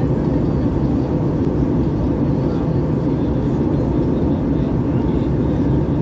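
Steady cabin noise of an Airbus A321 in flight: engine and airflow noise as an even low rumble that does not change.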